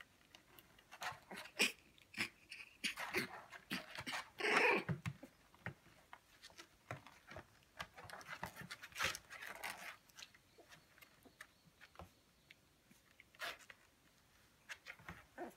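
Nineteen-day-old Shiba Inu puppies play-fighting, giving short squeaky yips and whimpers now and then, the loudest about four and a half seconds in, among small clicks and scuffs of their movement.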